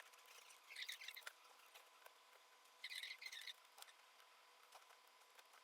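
Faint small clicks and two brief squeaky scrapes of a precision screwdriver driving the tiny screws that hold a MacBook Pro's logic board, the first about a second in and the second about three seconds in.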